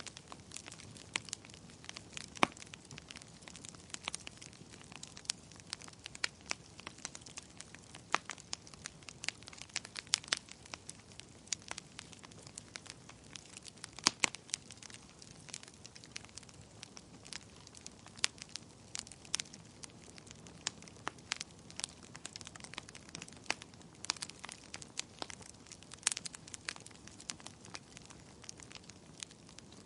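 Wood fire burning in a fireplace, with irregular sharp crackles and pops over a low steady hiss.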